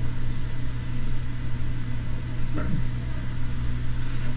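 Steady low machine hum with an even hiss: the room tone of a classroom.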